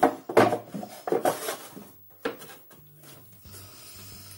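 Wooden drawer knocking and scraping against a small wooden drawer unit as it is handled and fitted into place: a handful of sharp knocks in the first two seconds or so, then only a faint low hum.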